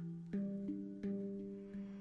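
Handpan music: a slow run of single struck notes, each starting sharply and ringing on under the next.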